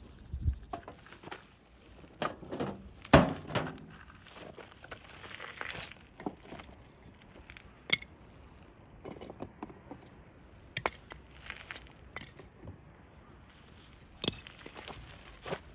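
Irregular knocks, clicks and taps of hard objects being handled, with one sharper knock about three seconds in.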